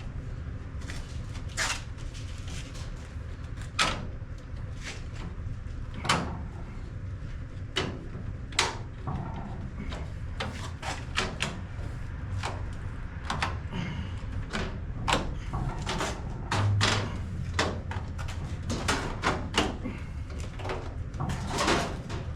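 Irregular clicks, taps and knocks of chrome trim being worked and snapped into place on a car body, over a steady low hum.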